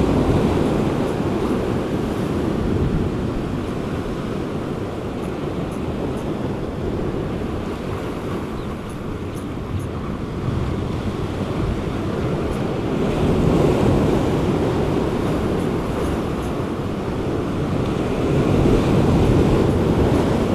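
Sea surf washing in and out at the shoreline in slow swells, growing louder about two-thirds of the way in and again near the end, with wind rumbling on the microphone.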